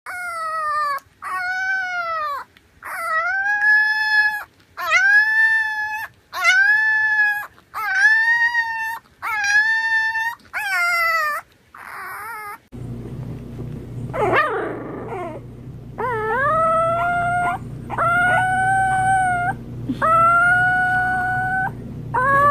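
A French bulldog puppy howling, about nine short howls in a row, each rising and then held level. After a cut, an English bulldog puppy howls several times in the same way over a steady low hum.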